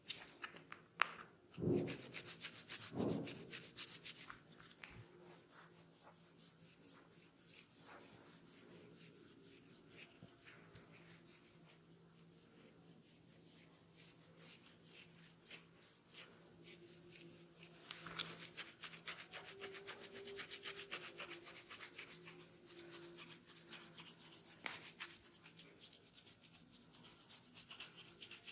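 Faint, close-up scratching and rubbing on hair and scalp, dry dandruff being scratched loose in quick fine strokes. It is busier in the first few seconds and again through the last third, with a couple of soft knocks a few seconds in.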